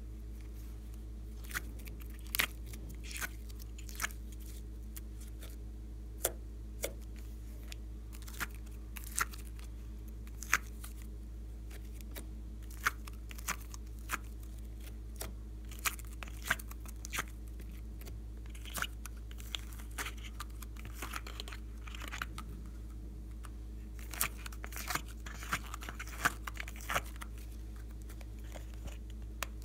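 Soft modelling clay being pried out of a thin, clear plastic compartment tray by hand: scattered sharp crackles and clicks, irregular and close, over a steady low hum.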